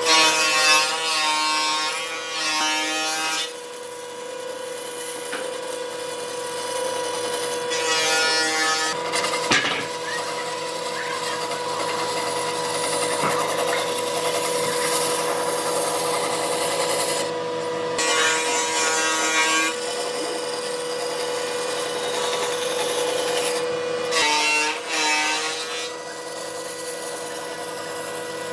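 A power tool runs steadily with a constant hum while working wood, over a rough rasping noise. Its pitch wavers briefly several times.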